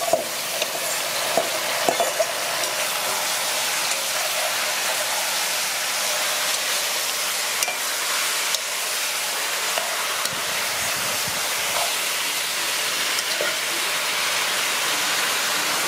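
Sliced pumpkin sizzling steadily in hot oil in a metal pot, stirred and turned with a metal spoon, with a few short scrapes of the spoon against the pot.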